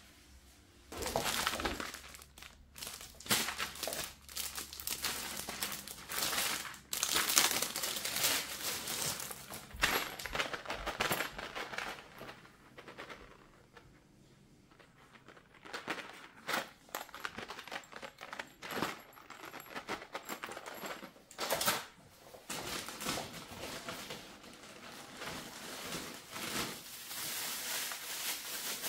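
Packaging being handled, crinkling and rustling in irregular bursts with short pauses between them.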